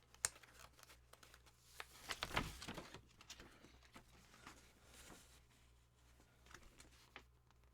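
Faint rustling and crinkling of a paper poster being handled, with scattered light taps. The loudest rustle comes about two seconds in.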